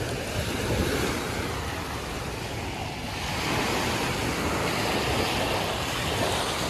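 Small ocean waves breaking and washing up a sandy beach, the surf swelling louder about halfway through.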